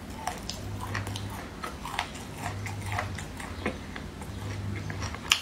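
Close-up chewing of chewy, spicy marinated chicken feet and tendon: wet mouth clicks and soft crunches at irregular intervals, with one sharper click near the end.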